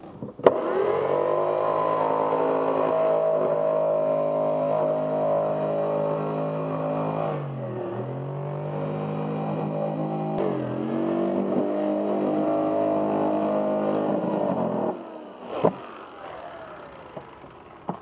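Electric jigsaw running and cutting a circular hole through a plastic cooler lid: a steady motor whine that sags in pitch twice midway as the blade slows, then stops, followed shortly by a single sharp knock.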